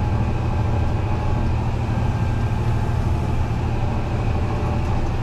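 Fendt 933 Vario tractor's six-cylinder diesel engine running steadily while driving across the field, heard from inside the cab as an even, deep drone.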